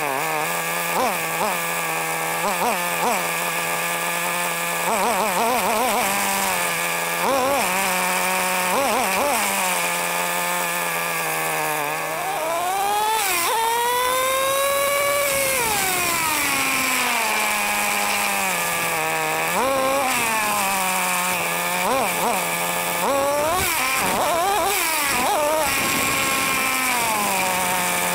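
Traxxas T-Maxx's 3.3 two-stroke nitro glow engine, heard close on board the truck, idling with a steady buzz and blipped in quick throttle bursts. About halfway in comes one longer run where the revs climb, hold high and wind back down over several seconds, followed by more short blips.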